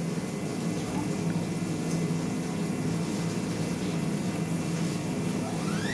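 CNC mill running with a steady hum. Near the end the spindle starts spinning up for the warm-up cycle, making a whine that rises steeply in pitch and then levels off.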